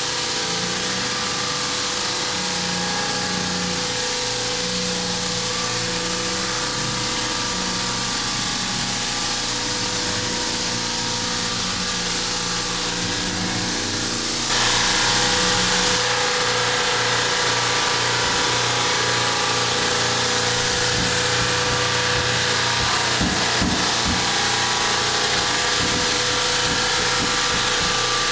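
Floor sanding machine running steadily on a red oak floor, with a fixed hum under a broad grinding hiss. It gets abruptly louder and brighter about halfway through.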